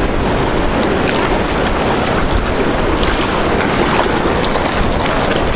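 Wind blowing across the microphone: a steady, deep rushing noise with no break.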